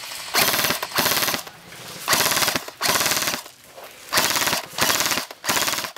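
Airsoft electric gun firing full-auto in about seven short bursts of roughly half a second each, every burst a fast rattle of shots, with brief pauses between them.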